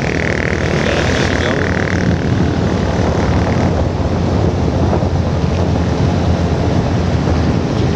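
Motorcycle running at steady road speed, its engine drone mixed with wind rush on the microphone. There is a louder hiss over the first two seconds or so while passing a truck.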